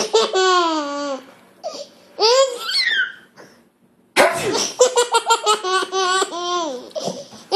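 One-year-old twin boys laughing: a long high squeal at the start, another rising-and-falling squeal after about two seconds, then, after a short pause, a quick run of giggles, about five a second.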